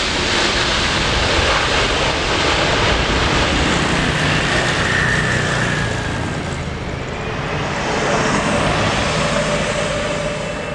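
Airbus A330-900's Rolls-Royce Trent 7000 jet engines as the airliner comes in to land: a loud, steady rush with a whistling tone that slides down about halfway through.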